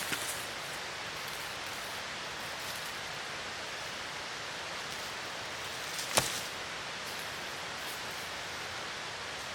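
Steady hiss of light rain falling, with one sharp click about six seconds in.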